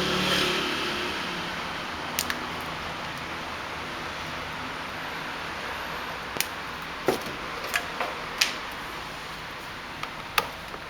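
Sharp clicks and taps from small parts and hand tools being handled, about six of them at uneven moments, over a steady background hiss.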